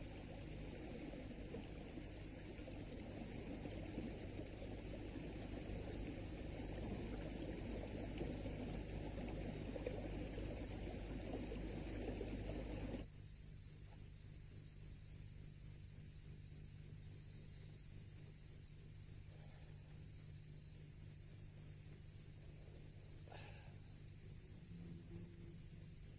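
Steady rushing outdoor noise for about the first half, which then cuts off suddenly. After it, crickets chirp in an even, rapid pulsing rhythm over a low steady hum.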